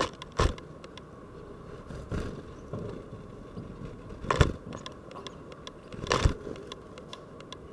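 Great tits landing and moving about right at the window: four sharp knocks with a brief flutter, about two seconds apart, and smaller ticks and scratches between them.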